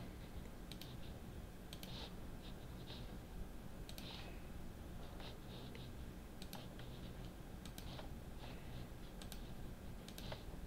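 Faint, irregular clicks of a computer mouse and keyboard, about one every second or so, with soft scuffing in between, over a low steady hum.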